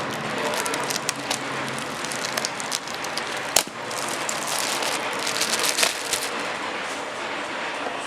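Crinkling and rustling of plastic packaging as the speaker's carry bag is unwrapped by hand, with a sharper click about three and a half seconds in.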